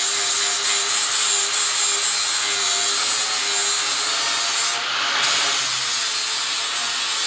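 Angle grinder working on steel, a steady motor whine under a loud hiss of abrasive on metal, the pitch sagging and recovering with pressure. The hiss lets up for a moment about five seconds in as the disc comes off the work.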